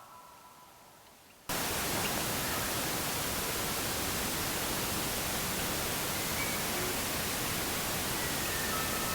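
A steady, even hiss that starts abruptly about a second and a half in, after a short fade to near silence. Faint thin high tones come in near the end.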